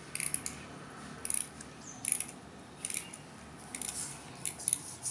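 Clockwork toy train being wound with its key: a series of short ratcheting click bursts, roughly one a second.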